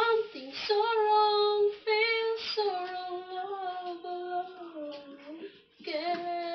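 A woman singing unaccompanied in a high voice, holding long notes that slide from one pitch to the next.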